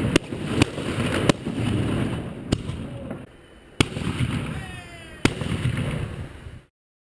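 Fireworks going off: sharp bangs, about six in seven seconds, over a steady crackle and rumble of more fireworks. The sound cuts off suddenly near the end.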